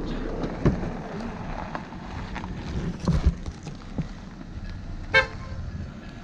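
An SUV pulling away, its engine rumbling low, with one short horn toot about five seconds in.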